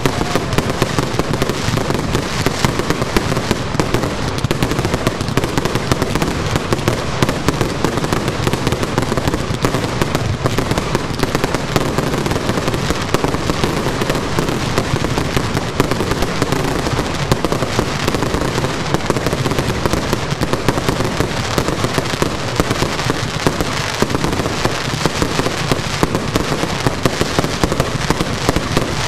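Aerial fireworks in a finale barrage: many overlapping bangs and crackles every second, with no pause between them.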